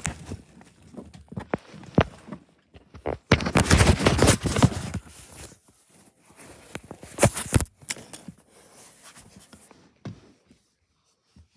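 Handling noise from a small action camera being picked up and moved about: scattered knocks and clicks, with two louder spells of rubbing against the microphone, the first about three seconds in and lasting over a second, the second a shorter one about seven seconds in.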